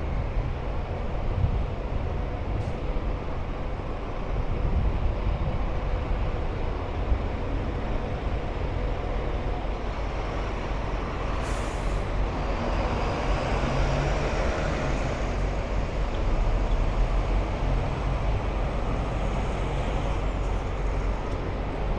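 Busy city street traffic noise: a steady rumble of passing vehicles, with a short high hiss about eleven and a half seconds in.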